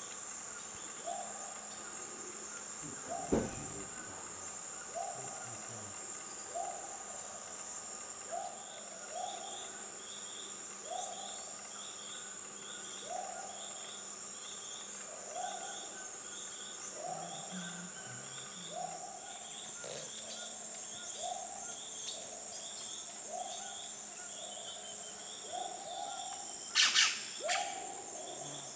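Tropical rainforest ambience: a steady high insect buzz, with a short hooting call repeated about once a second. A single knock comes about three seconds in, and a cluster of sharp sounds near the end is the loudest thing heard.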